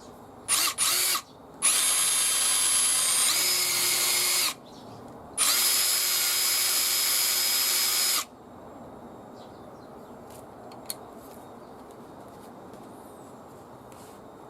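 HiKOKI WH18DDL2 cordless impact driver running free with no load, its bearings just replaced and regreased. It gives two quick blips of the trigger, then runs twice for about three seconds each with a high whine, and the whine changes pitch partway through the first run.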